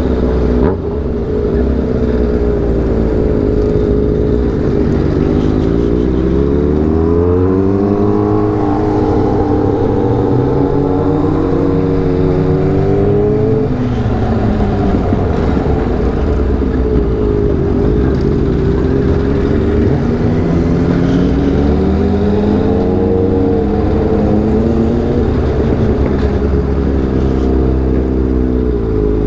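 Motorcycle engines running during a slow ride, with a steady low rumble. The revs rise and fall a few times as the bikes accelerate and ease off.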